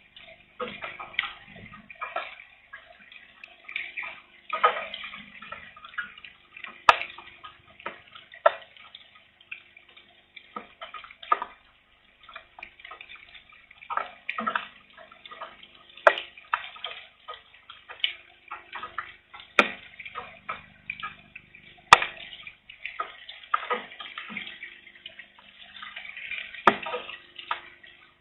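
Light rain: drops striking a surface at an irregular rate, with a few sharper, louder drops now and then.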